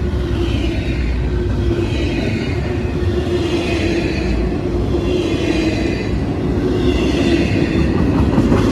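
Norfolk Southern intermodal freight train's cars rolling past, a steady rumble of wheels on rail.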